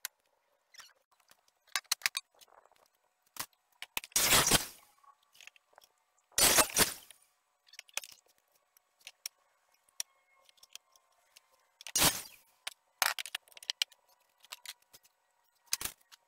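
Wooden boards knocking and clattering as they are handled, shifted and set down, with scattered light taps and several louder clunks about four, six and a half, and twelve seconds in.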